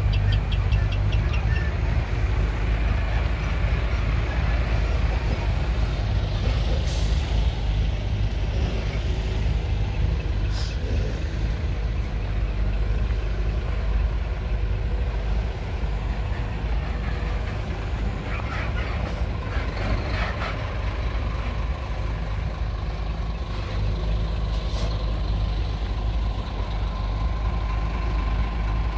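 Heavy diesel trucks idling with a steady low rumble, with a few short hisses of air from their air brakes.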